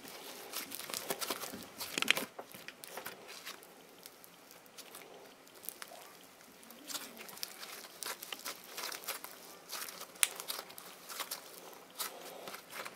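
Red floam, tiny foam beads in a stretchy binder, squeezed and pulled apart by hand, giving faint, irregular crackling and crunching.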